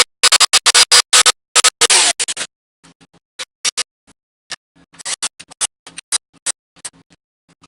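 Scraping, rasping workshop noise in short, choppy bursts. It is dense and loud for the first two seconds, then comes in sparser, quieter bursts.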